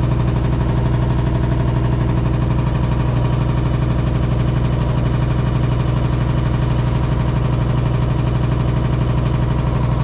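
Hitachi SF-150TCV 15 kg washing machine in high-speed spin, running with a loud, steady low hum and a fast rattling vibration. The tub wobbles from side to side, and the owner finds the noise abnormally loud for a new machine whose levelling checks out fine.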